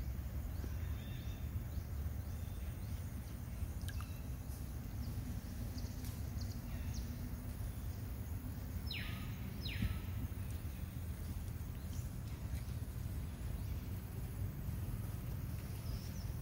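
Steady low outdoor rumble with a few faint ticks. Two short falling chirps come about nine and ten seconds in.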